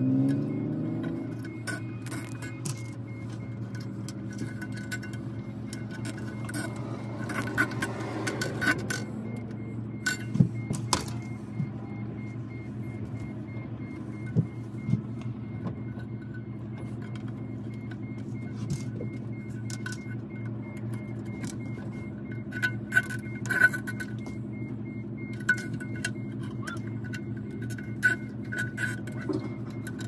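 A steady low machine hum, with scattered light clicks and taps from plastic splice-tray parts and fiber buffer tubes being handled, bunched around a third of the way in and again later.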